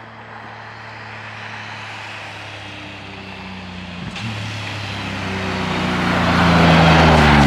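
Rally car engine approaching on the stage, getting steadily louder over the second half until it is loud near the end.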